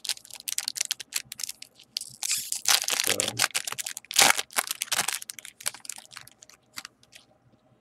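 Foil baseball card pack wrapper crinkling and tearing as it is ripped open and crumpled by hand, in irregular fits of crackling that thin out and stop shortly before the end.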